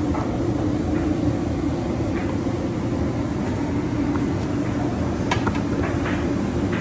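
Steady low rumble of commercial kitchen equipment. Over it, a metal spatula stirs noodles in a large wok, with a few light clinks and scrapes about five to six seconds in.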